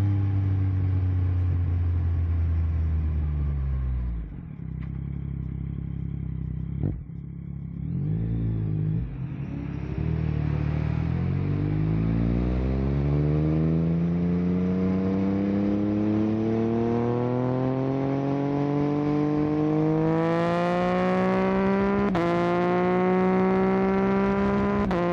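2022 Yamaha Tracer 9 GT's 890 cc inline-three through an un-baffled Akrapovic full exhaust. The engine comes off the throttle and drops to low revs, with a sharp click about seven seconds in. It then pulls up in a long, steady rise in revs, with a brief step in pitch about 22 seconds in, like an upshift, and runs on at a higher note.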